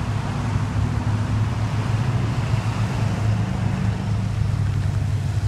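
Steady rumble of road traffic passing close by, low and unbroken.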